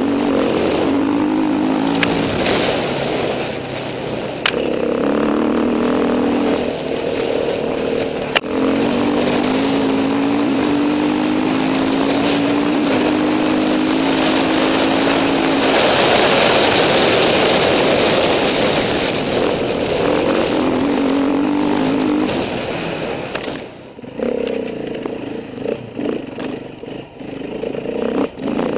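Enduro dirt bike engine heard from the moving bike, rising and falling with the throttle along a rough trail, with wind rushing on the microphone. A few sharp knocks come in the first third. Near the end the engine drops to a quieter, on-and-off throttle.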